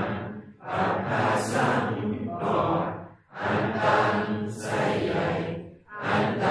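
Group of Thai Theravada Buddhist chanters reciting morning chanting in unison. The chant moves in long even-pitched phrases, with short breath pauses about half a second in, around three seconds in and again near the end.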